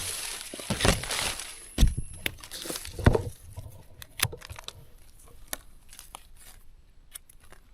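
Dry forest leaf litter rustling and crackling, with scattered sharp snaps and clicks, busiest in the first few seconds and thinning out toward the end.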